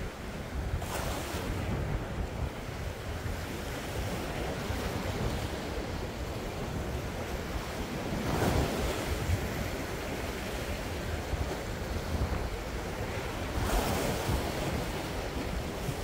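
Sea waves breaking on a rocky shore, with three louder surges about a second in, at the middle and near the end, over a constant wash of surf. Wind buffets the microphone with a low rumble.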